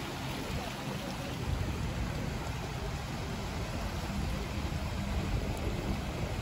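Steady seaside rush of wind buffeting the microphone, with small sea waves washing against the rocky shore underneath.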